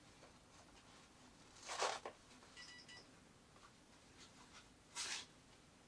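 Soft rustling of gift wrapping as a ribbon is untied and the wrapping pulled off a small soft package, with two brief louder rustles about two seconds and five seconds in. A faint short electronic beep sounds in between.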